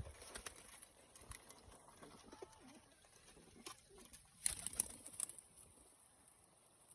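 Pigeons cooing softly, with scattered sharp taps; the loudest is a quick cluster of taps about four and a half to five seconds in.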